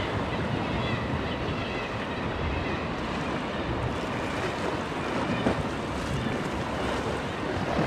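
Sea washing against the rocks just below, with wind buffeting the microphone: a steady rushing noise.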